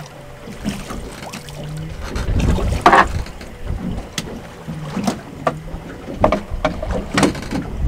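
Wind buffeting the microphone and water moving around a boat, over a low rumble, with scattered small clicks and one sudden loud hit about three seconds in as the fish is lifted from the water.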